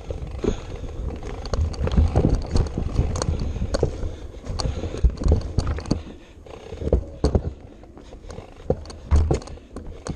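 Irregular knocks, clunks and rattles over a low rumble that swells and fades, as an off-road vehicle is jolted over rough, rocky ground.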